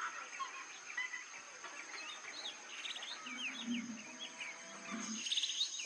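Small birds calling: a scatter of short, quick chirping notes and brief rising whistles, busiest in the second half.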